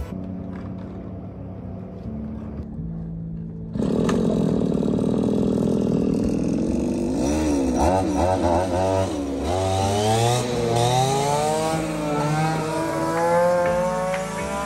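Backpack brush cutter's small two-stroke engine comes up loudly about four seconds in and runs at high speed, its pitch rising and falling as the throttle is worked while the brake-disc blade cuts through weeds.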